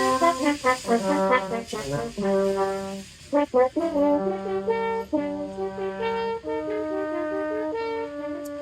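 Two French horns playing a duet, two lines of sustained and quick notes moving together in harmony, with a brief run of short notes partway through.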